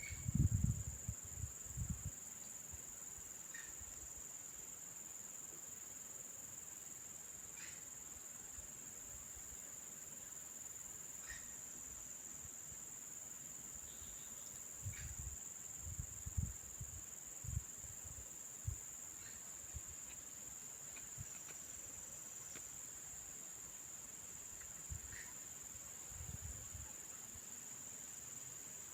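Steady high-pitched drone of insects, with scattered low thumps near the start, a cluster in the middle and another near the end.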